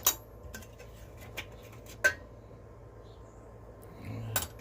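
Small metal hand tools and parts clinking and tapping together as they are handled out of a toolbox. Two sharp clinks stand out, one at the start and one about two seconds later, with lighter ticks between.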